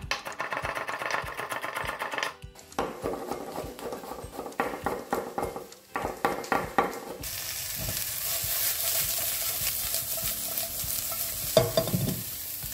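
A chef's knife chopping fresh herbs (mint, parsley, oregano) on a wooden cutting board, in quick irregular strokes. About seven seconds in, this gives way to sliced artichokes sizzling in oil in a frying pan, a steady hiss.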